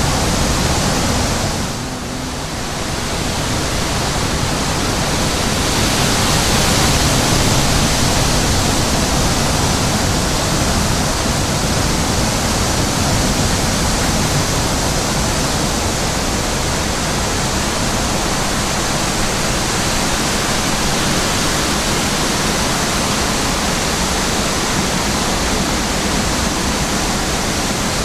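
Wind blowing steadily, with a brief lull about two seconds in.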